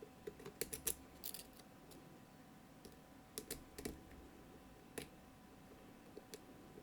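Lock pick clicking and scraping against the pins inside the keyway of a Mottura CP6 dimple lock while it is picked. Small sharp clicks come in scattered clusters, with a short scrape about a second in.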